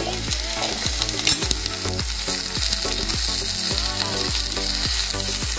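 Sliced radish and onion sizzling as they sauté in oil in a pressure cooker, stirred with a ladle in repeated strokes.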